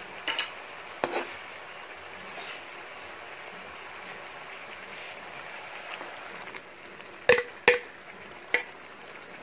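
Shrimp-paste and tomato sauce simmering in a wok, a steady low sizzling hiss. About seven seconds in come two sharp clacks close together, then one more a second later, like a utensil or lid knocking the pan.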